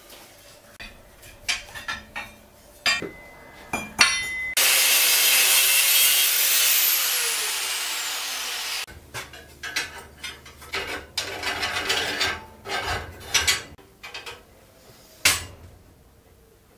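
Steel rod scraping and clanking as it is bent around a ring-bending jig on an anvil, then sharp metal-on-metal knocks and taps as the formed ring and tongs are handled against the anvil. In the middle a loud rushing noise with a falling whistle runs for about four seconds and cuts off suddenly.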